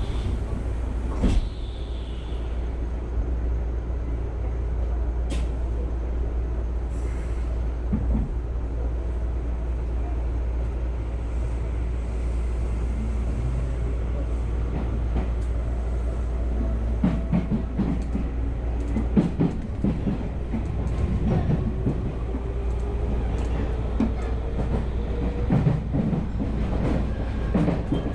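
Tokyu Oimachi Line electric train pulling out of a station and gathering speed, heard from inside the car. A steady low rumble runs throughout; from about halfway, wheel clicks over rail joints and points come thicker, and near the end a motor whine rises in pitch.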